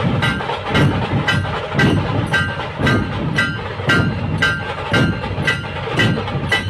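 Dhol drums beating a steady, driving rhythm, with a sharp metallic clash about twice a second, the sound of a Ganesh festival dhol-tasha ensemble.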